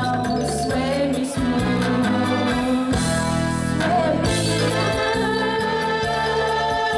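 Three women singing together into microphones over amplified accompaniment with a steady bass line and a regular drum beat.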